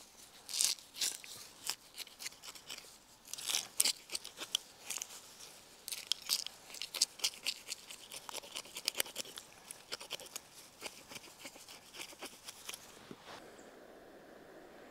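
A spoon scraping the scales off a small bream, with quick rasping strokes in runs that stop about a second and a half before the end, leaving a faint steady hiss.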